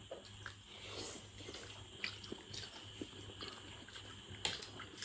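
Faint wet chewing and mouth clicks of a person eating noodles and dumplings close to the microphone.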